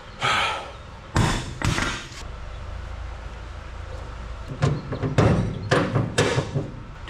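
Metal clanks and knocks from handling and fitting a rear shock absorber under the car: a few sharp knocks in the first two seconds, then a quicker run of knocks from about four and a half to six and a half seconds in, over a low steady hum.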